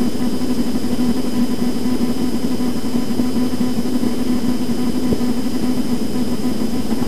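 Steady background hum and hiss with a few faint, constant high whines, unchanging throughout; a faint click about five seconds in.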